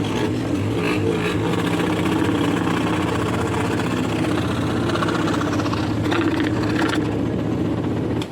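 Scroll saw running with a steady mechanical hum and buzz.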